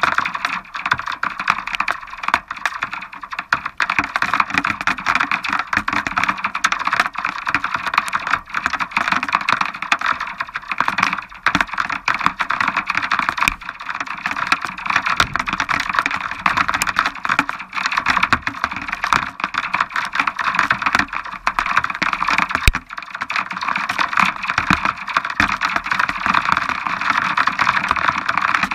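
Rain falling steadily, a dense crackle of countless drops hitting a hard surface, with one sharper click about 23 seconds in.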